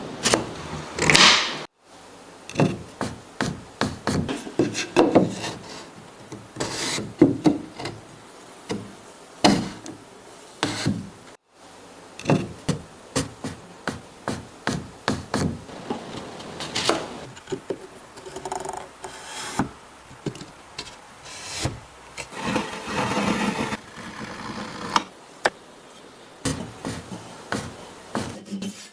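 Wooden joint parts being fitted together: wood rubbing and scraping as the pieces slide home, with many sharp knocks as they are tapped into place.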